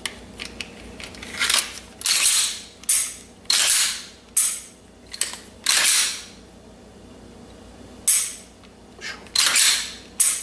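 Glock 35 pistol being racked and dry-fired by hand: repeated sharp metallic clacks of the slide running back and snapping forward, with the striker clicking, as the freshly assembled trigger is function-checked. The clacks come in quick succession, with a pause of a couple of seconds past the middle.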